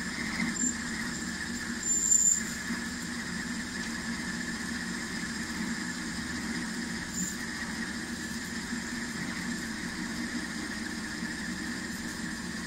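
Metal lathe running with its tool cutting a spinning metal bar: a steady low hum from the motor and gearing with a steady higher cutting whine over it, and a brief louder scrape about two seconds in.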